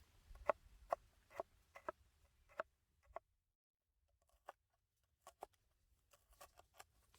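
A series of soft, short taps, about two a second, then a second's pause and a few more scattered taps.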